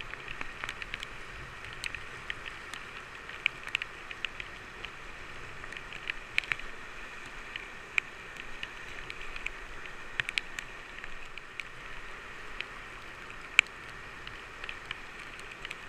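Whitewater river rapids heard from a kayak running them: a steady rush of fast-flowing water. Over it come irregular sharp ticks and splashes of water drops striking close to the camera, with one louder tick near the end.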